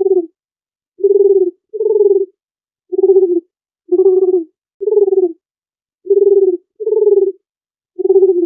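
Dove cooing: a run of short, low coos, about one a second, some close together in pairs.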